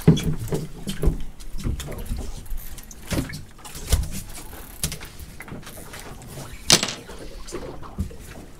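Knocks, thumps and clatter of fishing tackle being handled on a boat deck while an angler reels in, over a low rumble of wind on the microphone; a sharp clack stands out about seven seconds in.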